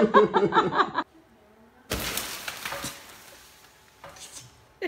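A sudden crash about two seconds in, a loud noisy burst that dies away over about a second and a half, like something breaking.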